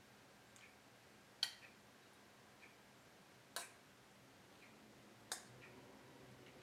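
Metal spoon clinking against a stainless steel bowl three times, about two seconds apart, while marinara sauce is scooped out. Otherwise near silence.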